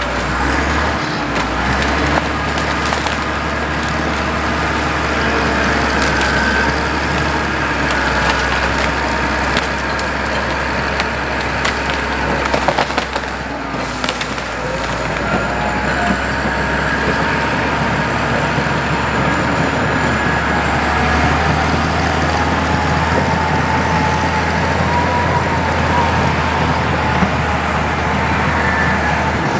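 CAT D6 bulldozer's diesel engine running steadily while wood and brush crack and splinter, with a cluster of sharp snaps about halfway through.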